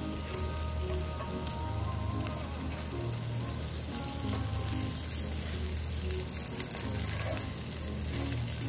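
Diced potatoes and chopped beef bacon sizzling steadily in a cast iron skillet as they are stirred with a wooden spatula, over background music.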